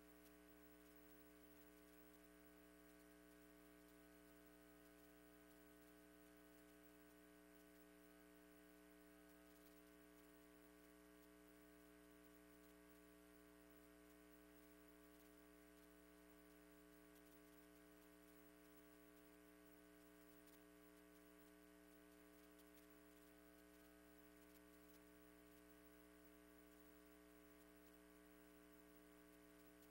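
Near silence with a faint, steady electrical mains hum that does not change.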